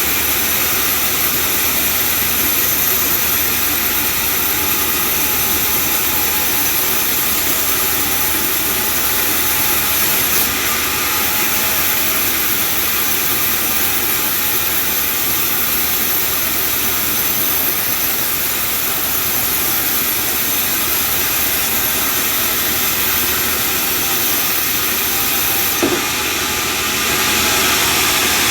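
Band sawmill machinery running with a loud, steady, even noise, with a short knock near the end.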